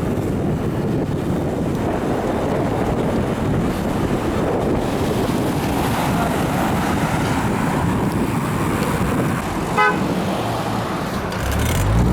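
Wind rushing over the microphone and traffic noise while riding along the street, with one short car horn toot about ten seconds in. Near the end a vehicle's engine comes in, rising in pitch.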